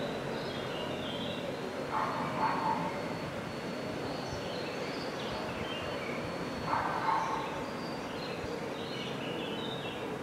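Steady outdoor background with small birds chirping and two short animal calls, about two and seven seconds in.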